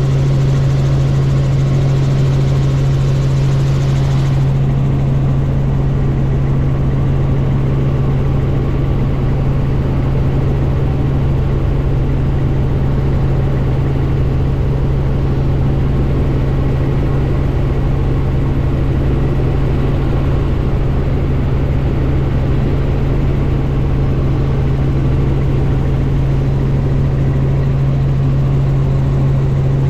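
Helicopter in flight heard from inside the cabin: a loud, steady drone of engine and rotors with a strong low hum. The high hiss drops away about four seconds in.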